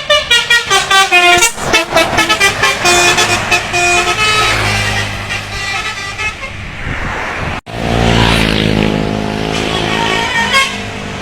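Telolet horn on a bus: a set of tuned air horns tooting a quick, jingly tune, its notes changing pitch several times a second, then holding longer notes over a deep engine rumble. After an abrupt cut about seven and a half seconds in, a bus engine runs with a deep rumble, and the quick horn tune starts again near the end.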